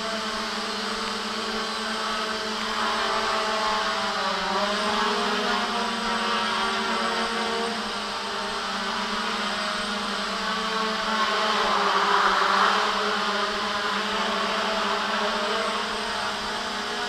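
JJRC X1 quadcopter's brushless motors and propellers whirring in flight, a steady hum whose pitch steps up and down with the throttle; louder briefly about twelve seconds in.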